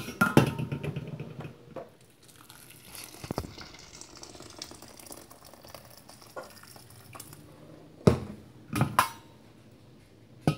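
A pot of stew bubbling on the stove, with metal clatter of the pot and lid in the first second and a few sharp knocks later, twice near the end.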